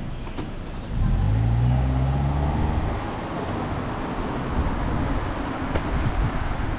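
Car engine and road noise heard from inside a taxi's cabin. About a second in the engine pulls harder, its low note rising slightly in pitch for a second or two, then it settles back into steady road noise.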